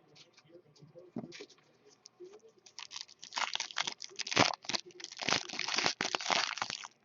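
Plastic trading-card pack wrapper crinkling as it is handled. The crackling is faint and scattered at first, then louder and denser from about three seconds in.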